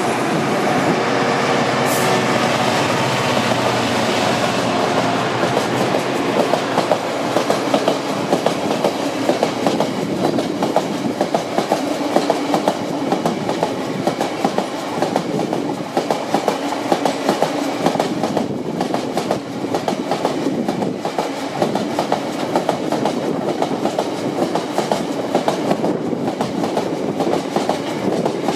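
A long freight train of loaded open box wagons rolling past, its wheels clattering over the rail joints in a steady clickety-clack.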